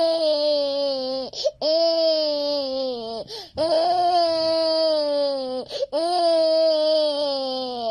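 A toddler crying in a tantrum: four long, loud wails, each sliding slowly down in pitch, broken by short sharp in-breaths between them.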